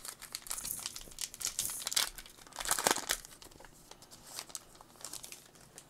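A 2021 Topps Heritage baseball card pack's printed wrapper being crinkled and torn open by hand, with the loudest tear about three seconds in, then softer crinkling as the cards come out.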